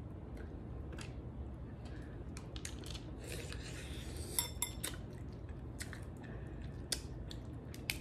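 Cooked snow crab legs being pulled apart and eaten by hand: scattered small shell clicks and cracks with chewing, and a quick run of sharper cracks about halfway through.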